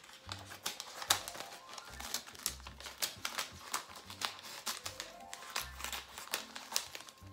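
Scissors snipping through a glossy magazine page: a quick run of sharp snips, about three a second.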